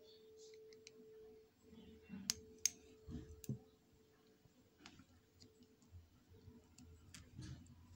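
Two sharp clicks about a third of a second apart, from a small flashlight's switch being turned off, followed by soft handling noises as the sunglasses are moved about.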